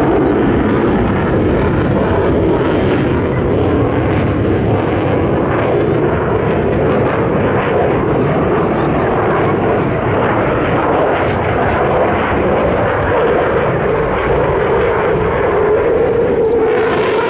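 A JASDF F-15 fighter jet's twin turbofan engines giving a loud, steady jet noise as it banks through a display turn overhead.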